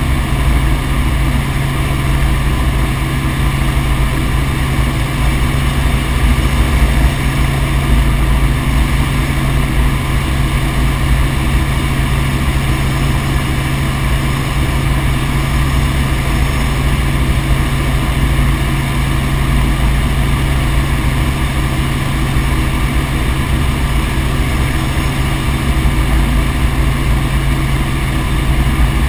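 Helicopter in flight: the engine and rotor give a loud, steady drone that does not change in level.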